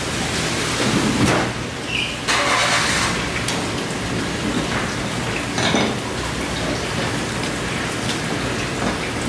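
Steady rush of running water, with a few brief knocks.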